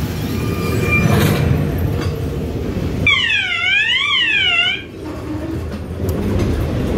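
Ghost train ride car rumbling steadily along its track. About three seconds in, a siren-like electronic tone sweeps down and up twice for under two seconds, then cuts off.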